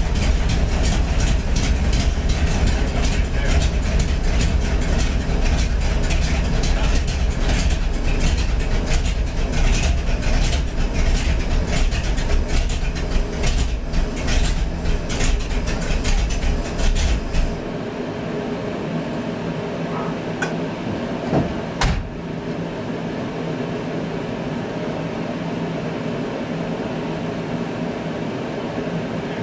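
A 1961 Buick's 401 Nailhead V8 running with a loud, deep rumble that cuts off abruptly about seventeen seconds in. A quieter steady hum remains, with one sharp click a few seconds later.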